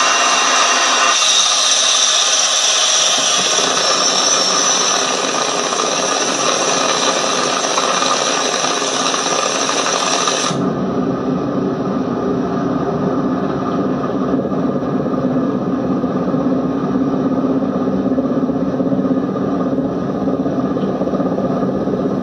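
Military helicopter's turbine engines and rotor running in flight, heard from inside the cabin as a loud, steady whine and drone. About ten seconds in the sound changes abruptly to a duller, lower drone.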